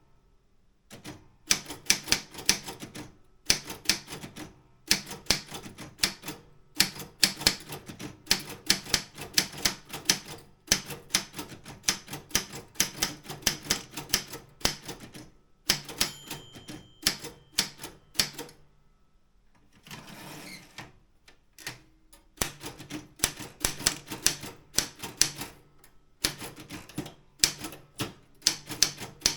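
Optima M16 manual typewriter being typed on: rapid bursts of key strikes with short pauses between words. About sixteen seconds in, a brief ringing tone sounds like the margin bell. Around twenty seconds a short swishing sweep follows, the carriage being returned, before typing resumes.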